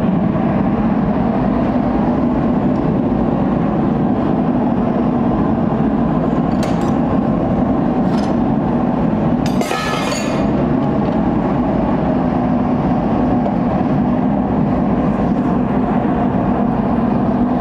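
Forge burner running with a steady rushing noise throughout. About ten seconds in, a short metallic clink of steel on steel as the hot bar is worked in the vise.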